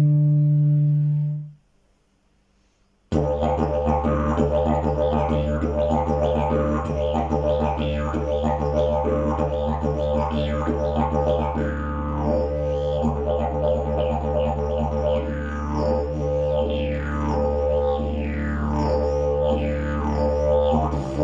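Fibreglass slide travel didgeridoo: a held note cuts off about a second and a half in, and after a short pause a low steady drone starts and runs on, its overtones sweeping up and down again and again as the player shapes the mouth and tongue.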